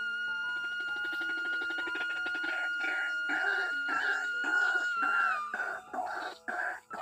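White-breasted waterhen calls: a run of harsh repeated notes, about two a second, starting a couple of seconds in, over background music with a steady held tone.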